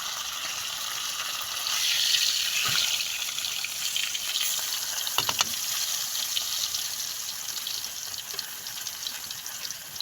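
Pampano fish frying in hot oil: a steady sizzle that grows louder about two seconds in, with a few scattered pops.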